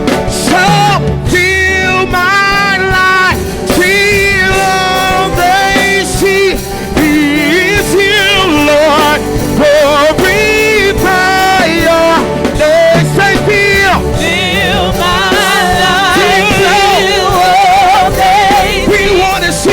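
Church worship music: a band playing while singers hold long notes with a wavering vibrato.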